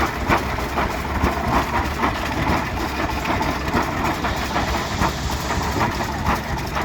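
A 1923 Rumley OilPull Model G tractor's two-cylinder engine idling, a steady low drone with an uneven run of exhaust beats.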